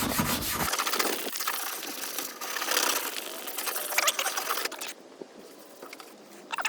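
A stiff scrubbing brush scrubbed dry, with fast back-and-forth strokes, over the unpainted plastic body cladding of an Isuzu VehiCROSS. The bristles give a scratchy rasp that stops about five seconds in.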